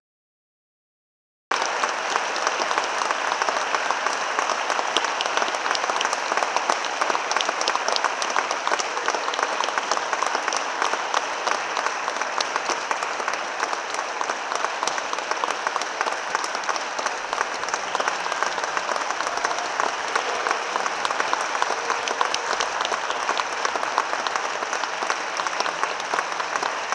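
Concert audience applauding: dense, steady clapping that comes in after about a second and a half of dead silence at the start and keeps on.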